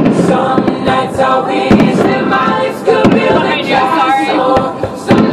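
Choral singing with music, broken by fireworks bangs, the sharpest right at the start and another about a second and a half in.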